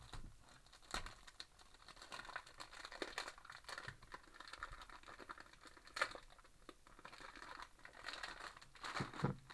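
Thin plastic wrap crinkling and tearing as it is pulled off a new 6x6 speed cube, with a few louder crackles among the steady rustle.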